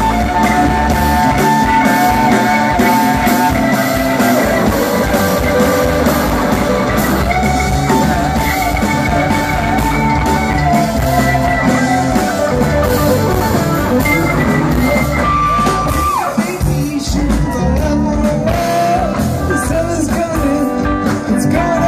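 A rock band playing live and loud: electric guitars with singing.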